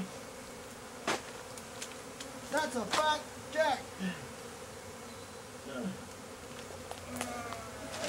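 A swarm of Africanized honeybees (killer bees) buzzing steadily as their hive is cut out of a sewer. A sharp knock sounds about a second in.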